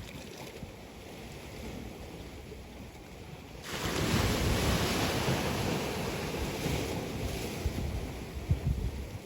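Sea waves on the shore: low surf rumbles, then about a third of the way in a wave breaks suddenly into a loud, hissing wash that slowly fades.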